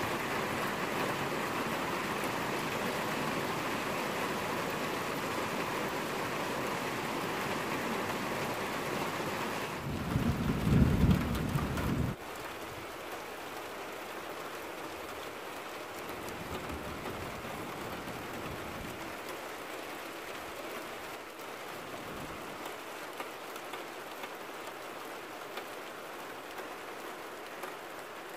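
Steady spring rain falling in a thunderstorm, with a loud low rumble of thunder about ten seconds in that cuts off suddenly; after it the rain continues more softly.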